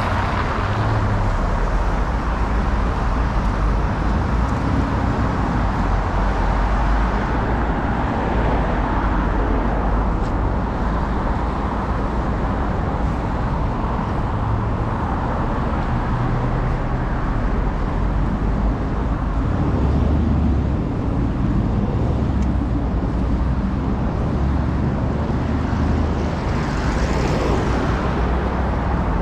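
Steady road traffic on a wide city avenue: the continuous rumble and tyre hiss of passing cars, swelling as vehicles go by at the start and again near the end.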